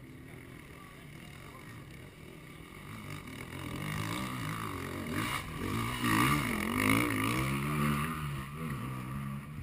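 Off-road enduro motorcycle engine revving up and down as the rider works up a steep dirt climb. It grows louder from about four seconds in and is loudest near the end, with the pitch rising and falling repeatedly under the throttle.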